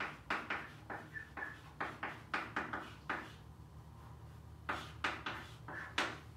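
Chalk tapping and scraping on a chalkboard as a line of words is written: a quick run of short strokes, a pause of about a second and a half in the middle, then more strokes.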